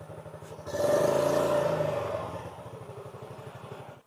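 Yamaha Mio Soul i 125 scooter's single-cylinder four-stroke engine idling with a fast even putter, revved up about a second in and easing back toward idle. The sound cuts off suddenly at the end.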